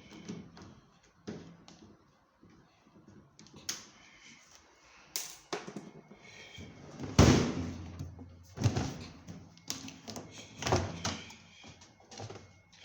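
Knocks and clunks of washing machine parts being handled during disassembly, about eight in all, the loudest about seven seconds in with a short low ring after it.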